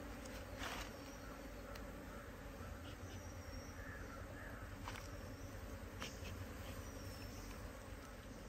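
Honeybees from a queenless colony buzzing steadily around their opened hive box as they are smoked and driven off the frames. A few light knocks from the handling come through.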